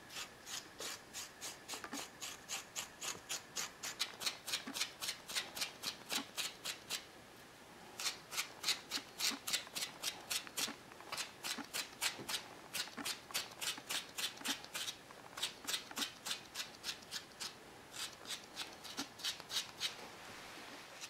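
Brisk, regular rasping strokes of a grooming stone drawn along a Border Terrier's wiry tail coat, about three strokes a second, with a short pause about a third of the way in. Each stroke pulls soft, dead fuzz out of the harsh terrier coat.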